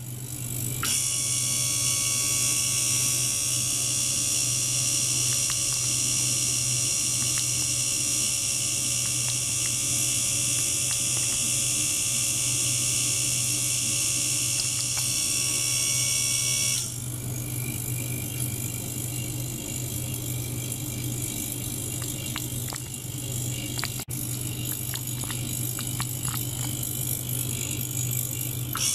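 Small ultrasonic cleaning bath running with water in the tank: a steady low buzz under a bright high hiss. About seventeen seconds in the hiss drops and faint crackling clicks come through.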